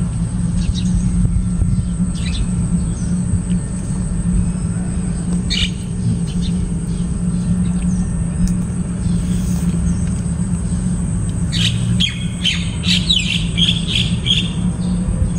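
Birds chirping outdoors: a single short call about five seconds in and a quick run of short chirps near the end, over a steady low hum.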